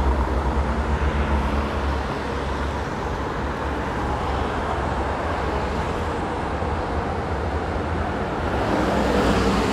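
Road traffic on a city street. A vehicle engine hums steadily for the first couple of seconds, then a wash of passing traffic swells near the end.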